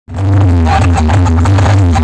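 Loud DJ music blasting from a tower of stacked speaker boxes, with a heavy, steady bass.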